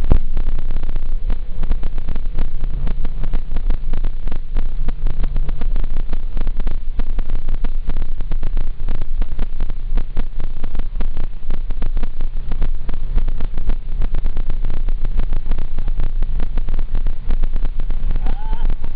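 Interior cabin noise of a Mazda 2 with the 1.3-litre, 84 hp four-cylinder petrol engine cruising at highway speed on Aeolus 195/45/16 tyres. A steady low drone of engine and road rumble, with the engine note shifting slightly in pitch.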